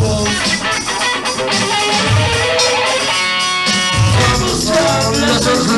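Live rock band playing, with electric guitar and a singer into a handheld microphone; a note is held briefly about three seconds in.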